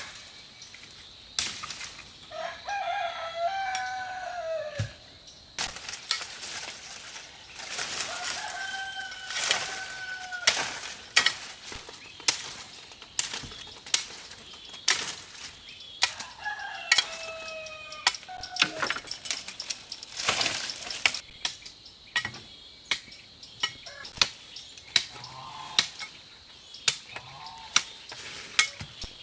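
A rooster crows three times, each crow a long rising-and-falling call of two to three seconds. Sharp knocks come throughout, more often and more evenly in the second half.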